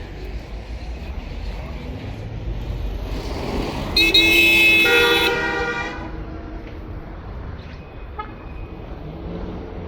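A vehicle horn sounds once in traffic, one long honk of about a second and a half near the middle, over steady street noise.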